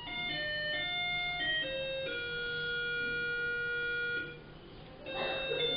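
A simple electronic tune of plain, beep-like notes, several sounding together and changing every fraction of a second, with one long held chord in the middle. The tune dips away briefly, and a short noisy rustle comes about five seconds in before the notes resume.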